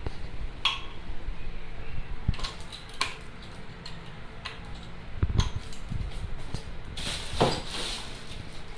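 Metal parts of a bike repair stand being handled and fitted together: scattered clinks and knocks, with a short rustle near the end.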